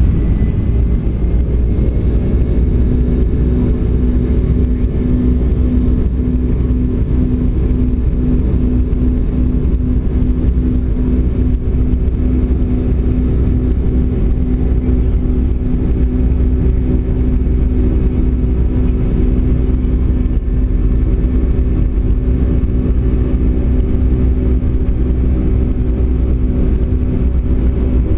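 Boeing 757-200's jet engines running steadily at high power, heard inside the passenger cabin as a loud, deep drone with a steady hum on top.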